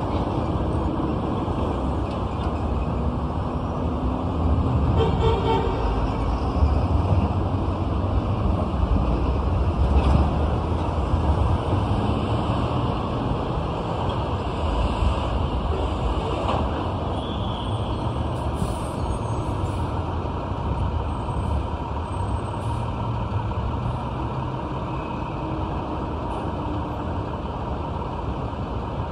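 City street traffic heard from above: trucks and cars passing with a steady low rumble that swells as heavier vehicles go by, and a brief pitched sound about five seconds in.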